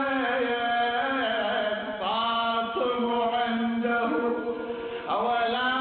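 A man chanting an Arabic mourning elegy solo, drawing out long, ornamented notes that slide up and down in pitch. He breaks briefly about two seconds in and again about five seconds in.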